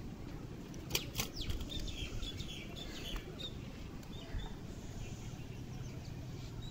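Pet common myna making a few quick wing flutters about a second in, then several short, faint chirps.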